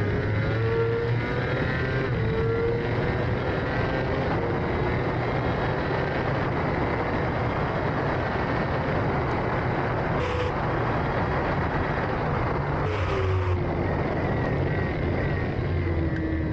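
Racing sidecar outfit's engine running hard at speed over a steady rush of noise, its pitch drifting slightly up and down. There are two short bursts of hiss in the second half.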